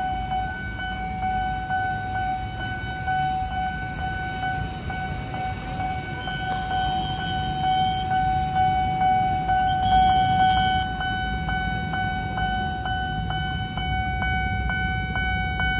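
Railway level-crossing warning alarm sounding a steady electronic tone while the barriers are down for an approaching train, with a regular beat of short strikes joining in after about eleven seconds. Idling motorbike engines rumble underneath, and a brief higher tone sounds twice in the middle.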